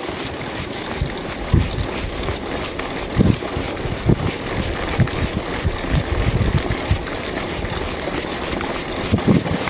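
Wind buffeting the microphone over the tyre rumble and frame rattle of a mountain bike riding a rough dirt track, with irregular knocks as the wheels hit bumps.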